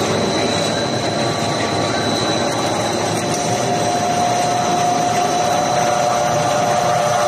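Twisted square bar drawing machine running steadily as the twisted steel bar is drawn through and wound onto its take-up drum: a continuous mechanical rattle with a steady high whine, and a lower steady tone joining about four seconds in.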